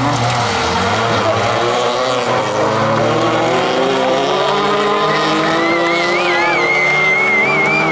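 Several dirt-track race car engines revving hard, their pitches rising and falling as the cars accelerate and lift through the corners. Over the last few seconds a wavering high whistle-like tone sounds above them.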